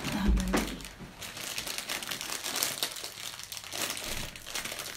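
Clear plastic sweet bag crinkling and rustling as hands reach in and take out bonbons.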